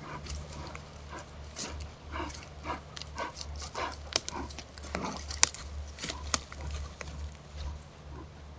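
American black bear breathing loudly in short, irregular puffs as it walks, louder than its footsteps, with a few sharp snaps or footfalls in between.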